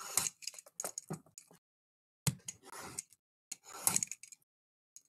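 Plastic wrap on a cardboard trading-card box being slit with a blade and pulled open, in several short scraping sounds about a second apart.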